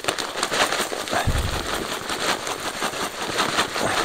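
Mixed bird seed poured into a bird feeder: a dense patter of small ticks and rattles, with a low bump just over a second in.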